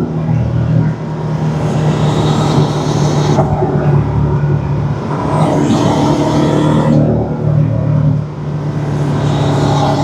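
Porsche 718 Cayman's turbocharged flat-four running with an aftermarket RaggDoll turbo inlet pipe fitted. A steady engine note is joined by a rushing hiss that swells and fades three times, with brief dips in level about a second in and near the end.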